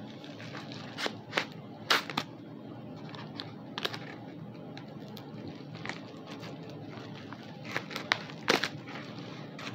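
Packaging being opened by hand: irregular clicks, scrapes and crinkling of plastic and cardboard. The sharpest snaps come about a second and two seconds in and again near the end.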